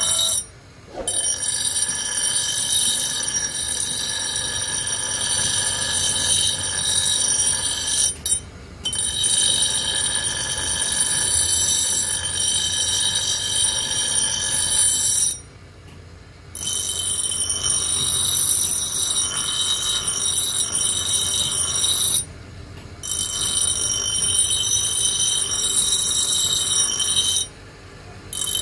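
Electric bench grinder's wheel grinding a steel axe blade in long passes, a shrill, high-pitched grinding squeal. It breaks off for a moment about five times as the blade is lifted from the wheel, leaving the quieter run of the grinder motor.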